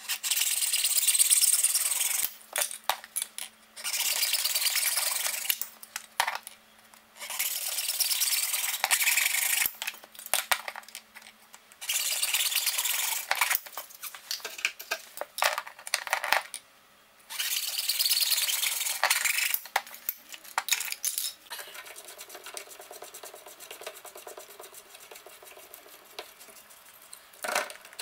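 Junior hacksaw cutting through a black plastic kitchen unit leg, in several bursts of quick strokes a couple of seconds each with short pauses between. After that come quieter handling noises and a few clicks.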